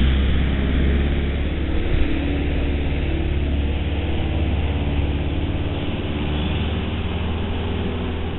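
A vehicle engine idling steadily with a low hum, under the even hiss of heavy rain, heard through a security camera's microphone.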